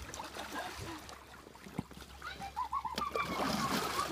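Kayak paddles splashing and dripping in pool water as an inflatable two-person kayak is paddled. The splashing grows louder in the second half. Just before that comes a short run of four quick high chirps.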